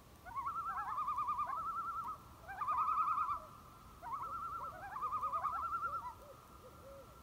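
Common loon giving its tremolo call: a rapid, wavering, laughing note, repeated in three bouts.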